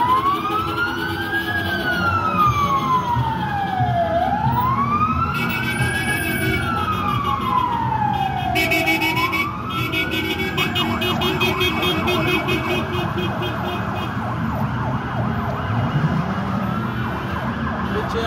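Vehicle sirens wailing, rising and falling slowly in pitch, with more than one siren overlapping, over the running of passing traffic. The wail dies away about halfway through, leaving dense traffic noise.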